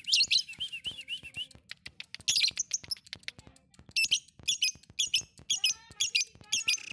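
Fischer's lovebird chattering in full song: bursts of fast, shrill chirps and trills broken up by sharp clicks.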